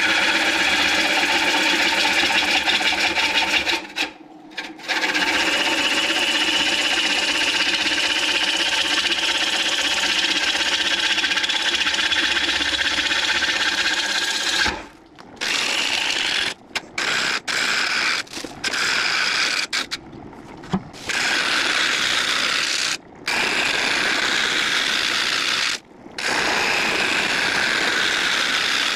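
Turning tool cutting the inside of a large blue pine bowl spinning on a wood lathe: a steady scraping hiss of the cut, broken by several short gaps as the tool is lifted off the wood.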